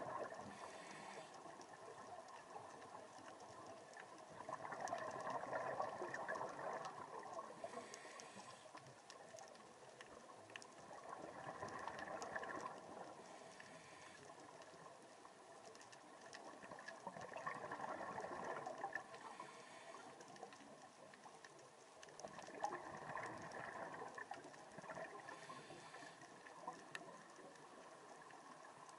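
Scuba diver breathing through a regulator underwater: each exhalation sends out a burst of bubbles, recurring about every six seconds.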